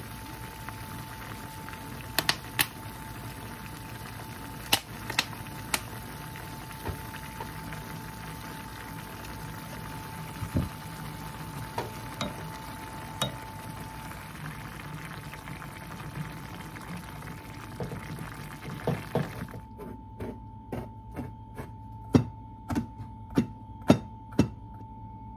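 A pan of stew simmering with a steady hiss, broken by a few sharp clicks of a wooden spoon against the pan as it is stirred. About twenty seconds in the hiss stops and a kitchen knife chops pickled radish on a cutting board, sharp taps about two a second. A faint steady hum runs underneath throughout.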